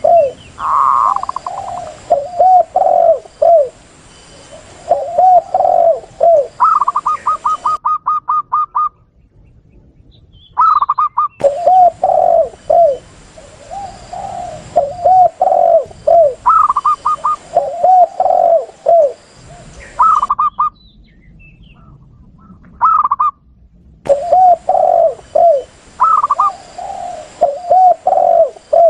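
Doves cooing: spotted doves (tekukur) give repeated low coo phrases while zebra doves (perkutut) break in with quick runs of higher, rapid coo notes. It is a spliced lure recording with abrupt cuts and short silent gaps between takes.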